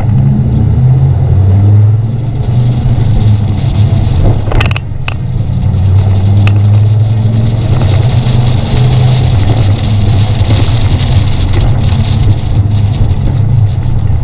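Dodge Ram SRT-10's 8.3-litre V10 pulling the truck along at a steady cruise, a steady low drone under a rush of tyre and wind noise picked up beside the front wheel. A few sharp knocks come around five and six and a half seconds in.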